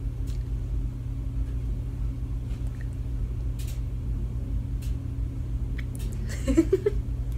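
Steady low hum with a rumble beneath it, with a few faint clicks scattered through. A brief soft vocal sound comes near the end.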